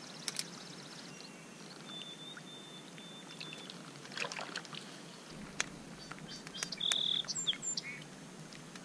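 Quiet lakeshore ambience: a faint steady hiss with scattered light knocks and clatter, and a few short, high bird chirps and whistles, one held briefly near the end.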